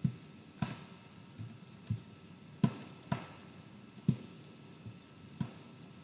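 Computer mouse clicking: irregular single clicks, about nine of them, spaced roughly half a second to a second apart.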